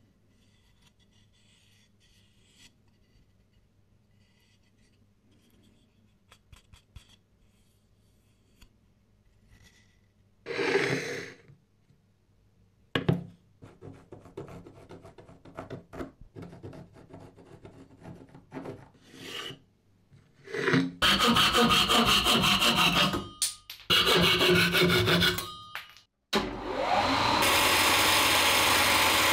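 Woodworking sounds on a wooden board: faint handling, then a loud scrape, then short scratchy strokes of a scribe tracing an outline. A few seconds of loud stop-and-start abrasive noise follow. Near the end a milling machine's spindle runs steadily, turning a 40-grit sanding drum against the wood for rough sanding.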